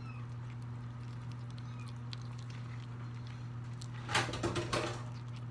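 A steady low hum, then about four seconds in a short run of harsh, noisy bursts from a kitten guarding and eating a scrap of rotisserie chicken.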